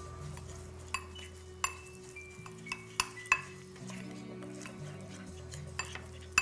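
Metal spoon stirring a marinade in a small glass bowl, clinking against the glass at irregular moments, each clink ringing briefly. Background music with a steady bass line plays under it.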